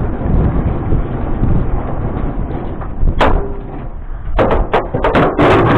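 A low steady rumble, then a single sharp knock about three seconds in, followed near the end by a quick run of hard bangs and clatter.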